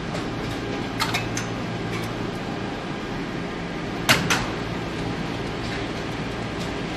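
Steady machinery hum on a car assembly line, with a few sharp metallic clicks about a second in and a louder double clank about four seconds in.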